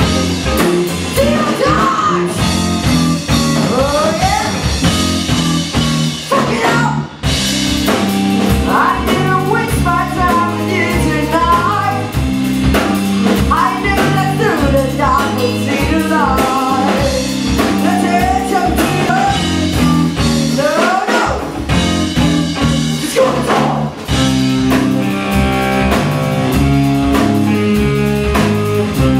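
Live funk-rock band playing: electric guitars and a drum kit over a steady groove, with a female singer's vocal line. The music briefly drops out twice, about seven seconds in and again near twenty-four seconds.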